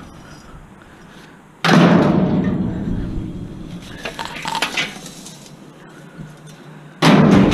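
Two loud crashes of scrap metal being thrown in, about five seconds apart, each followed by a clattering, rattling tail that dies away over a couple of seconds, with lighter metallic clinks in between.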